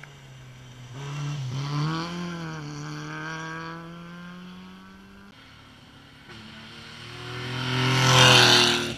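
Rally car engines at high revs on an asphalt stage. One car's engine note dips and climbs again with a gear change, then holds and fades away. Another car then approaches, growing louder until it is loudest just before the sound cuts off.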